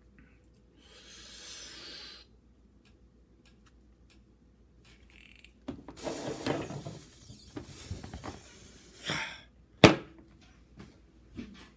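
Heavy breathing and straining during a hard squeeze on a Captains of Crush hand gripper, with one sharp knock near the end.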